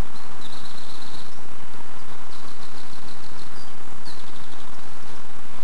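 A small bird's high, thin trilling calls, three times, over a steady background hiss.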